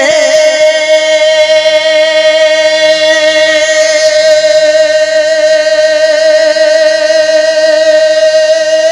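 A male naat singer holding one long, steady sung note, its pitch wavering briefly as it settles at the start.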